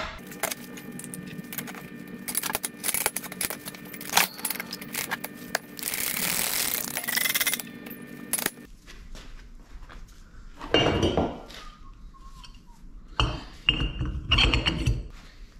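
Steel hub, bearing and bearing-carrier parts clinking and clanking as they are set into a shop press and pressed on, with a steady hum and a stretch of hiss in the first half. The hum cuts off about halfway, and later come a few louder knocks as the assembly is handled on a steel-topped workbench.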